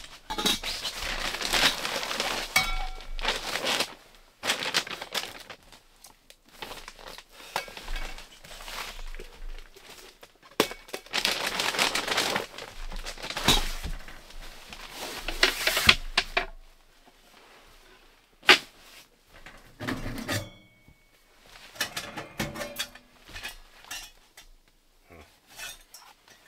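Bursts of loud rustling and crackling of fabric as a camouflage sleeping bag and tent gear are handled and packed. From about two-thirds of the way in come scattered knocks and light metallic clanks, a few briefly ringing, from handling a small stainless steel wood stove.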